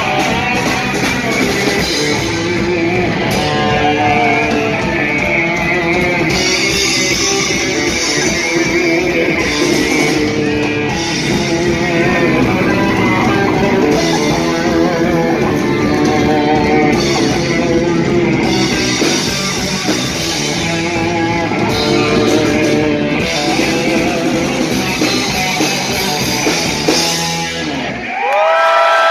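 Live heavy metal band playing loud electric guitar over a drum kit. Near the end the band stops, leaving a single held note that bends up and then back down.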